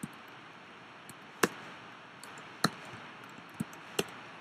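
Four sharp, separate clicks at uneven intervals from someone working a computer's keys and mouse, over a faint steady hiss.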